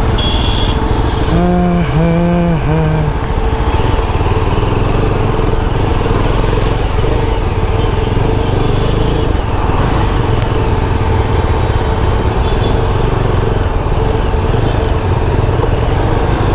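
Motorcycle engine running steadily at low speed, heard from the rider's seat, with a vehicle horn honking three times in quick succession about a second and a half in.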